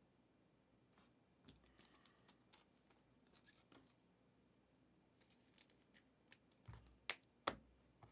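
Trading cards being handled: faint rustles and light clicks, then two sharper taps about half a second apart near the end.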